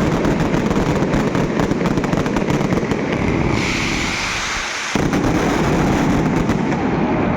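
Fireworks going off in a dense, rapid run of bangs and crackles. About three and a half seconds in the bangs thin out to a hiss for a second or so, then resume just as densely.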